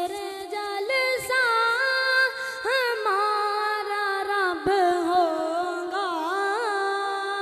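A boy's voice reciting a naat unaccompanied, holding long melodic notes that glide and waver in ornamented turns without breaking into words.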